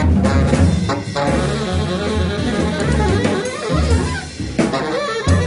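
Instrumental background music with guitar and a drum kit keeping a steady beat.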